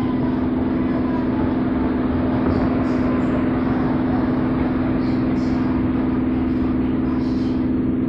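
WAP-4 electric locomotive hauling an express train past, its wheels rumbling over the rails. A steady low tone holds unchanged throughout.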